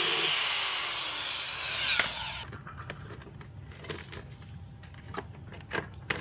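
A power drill boring a hole through a car's door trim panel, its high whine sagging slowly in pitch under load before it stops about two and a half seconds in. A few light clicks of handling follow.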